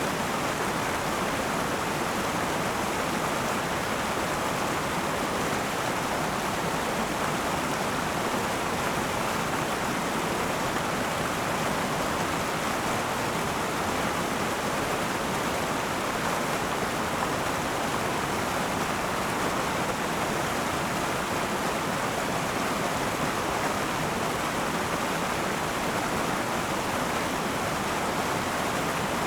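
River water flowing over rocks, a steady rushing sound that holds at an even level throughout.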